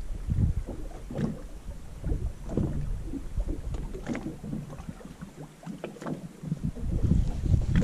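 Water lapping and slapping against the hull of a small fibreglass boat, with wind buffeting the microphone: an uneven low rumble with small splashes, easing for a moment a little past the middle.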